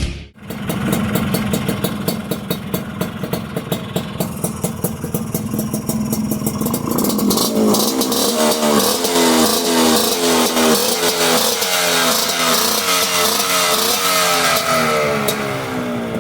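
Suzuki two-stroke motorcycle engine running through an iron expansion-chamber exhaust, with a rapid crackling pulse. About halfway through it is revved up and down over and over, its pitch rising and falling with each blip of the throttle.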